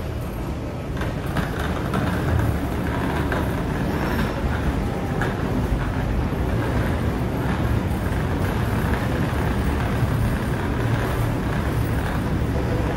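Steady low rumble of wheeled suitcases rolling along the hard floor of an airport walkway.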